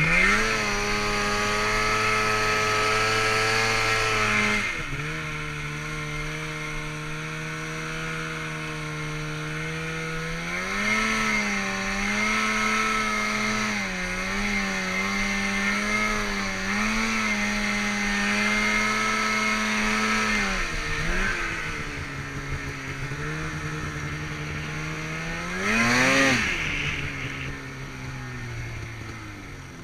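Snowmobile engine running under throttle while riding: it revs up at the start and eases off about four seconds in. It climbs again after about ten seconds and holds with small wavers, drops back, then gives one short sharp rev near the end before falling away.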